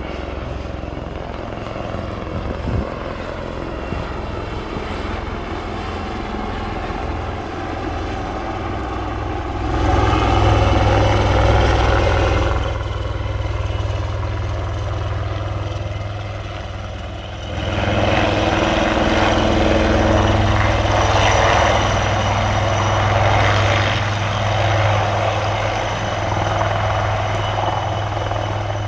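Military helicopter in flight: a steady low rotor throb with engine whine above it. It gets louder about ten seconds in, eases off, then swells again a little past halfway and stays loud.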